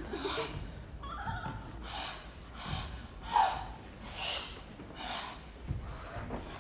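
A woman gasping for breath, short hard breaths about one a second, some with a catch of voice; the loudest comes about halfway through.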